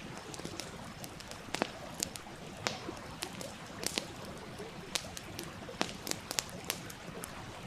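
Campfire crackling with irregular sharp pops, a strong one every second or so among fainter ticks, over the steady rush of a stream.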